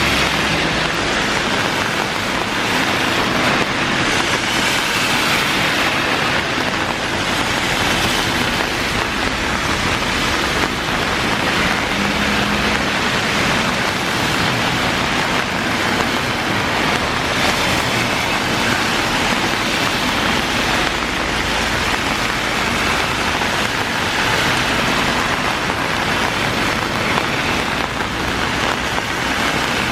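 Heavy rain falling steadily, with cars passing on the wet road, their tyre hiss swelling and fading over the rain.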